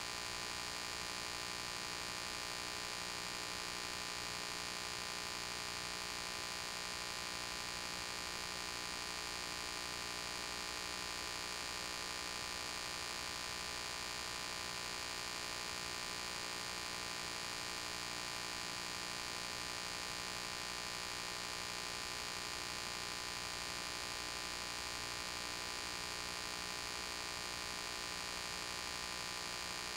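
Steady electrical hum with hiss, unchanging throughout, with no other sound: the noise floor of an old silent film's audio track.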